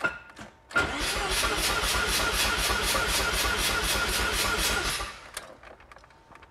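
Mazda 13B twin-rotor rotary engine being cranked over on the starter for a compression test. It starts with a sharp click, the starter catches a moment later, and the engine turns over with an even pulsing of about five beats a second for about four seconds before it stops. The owner suspects the starter solenoid is failing.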